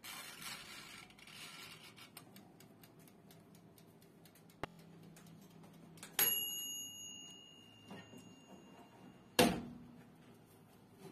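Ticking and clicking as the knob of a countertop electric oven's mechanical timer is turned, then a bell ding about six seconds in that rings on steadily for about three seconds: the timer signalling that baking is done. A sharp clunk near the end cuts the ringing off.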